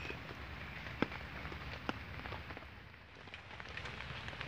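Rain dripping in a tropical forest: a steady patter with scattered single drops, and two sharper clicks about one and two seconds in.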